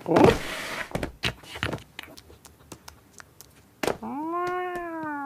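Cartoon cat sound effects: a short rustling scuffle, a run of light taps and clicks, then about four seconds in one long meow that rises and then sags a little.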